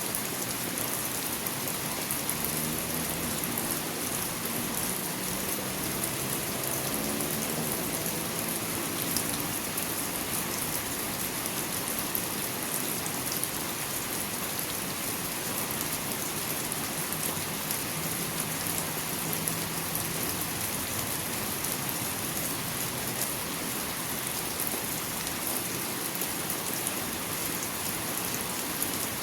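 Steady rain falling, an even hiss of many drops. A faint low hum sits underneath for a few seconds early on and again briefly later.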